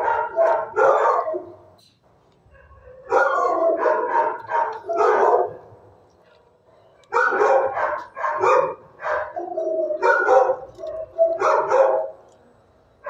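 Dog barking in three runs of rapid barks, with short pauses between the runs.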